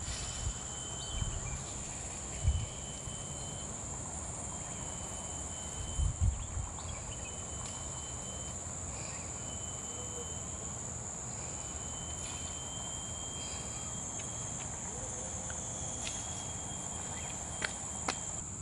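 Steady high-pitched drone of insects in the trees, with short thin tones repeating on and off over it and a few dull bumps about 2.5 and 6 seconds in.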